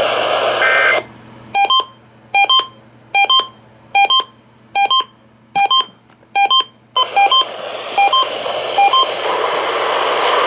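A steady series of short two-note electronic beeps, roughly one every 0.8 seconds, heard over a radio feed. The hiss cuts out about a second in, under the first several beeps. It returns about seven seconds in, with a few fainter beeps still over it.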